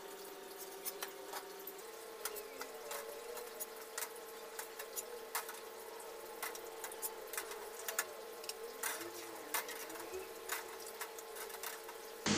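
Metal ladle scooping in a stainless steel stockpot, with irregular light clinks and taps against the pot as boiled duck pieces are lifted out into a bowl. A faint steady hum sits underneath, stepping up slightly in pitch about two seconds in.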